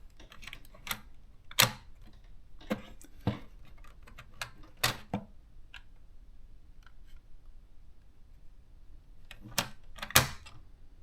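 Irregular plastic clicks and knocks from a correction cartridge being handled and seated in a Panasonic thermal typewriter. The loudest knocks come about one and a half seconds in and near the end.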